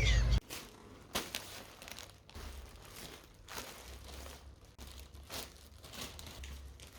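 Crinkling and rustling of something being handled, with scattered light clicks and knocks. A louder sound cuts off abruptly about half a second in.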